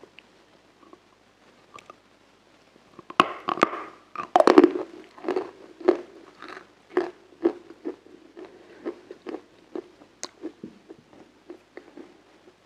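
Close-miked biting into hard, frozen ice cream: loud crunching bites about three seconds in, then crunchy chewing at about two crunches a second, growing fainter towards the end.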